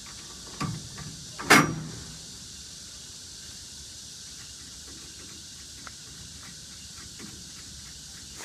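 Aluminium crosscut fence of a sliding table saw knocked into place on its outrigger frame: a thump about half a second in, then a louder metal clank with a short ring about a second and a half in. Faint clicks follow as the fence fittings are handled.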